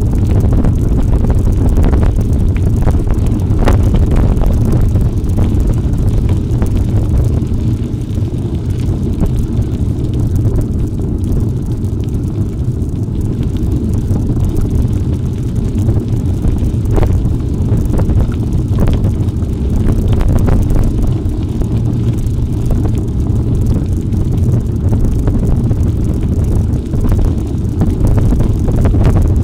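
Wind buffeting the microphone while cycling, a steady heavy low rumble, with scattered clicks and knocks from the bike over rough ground.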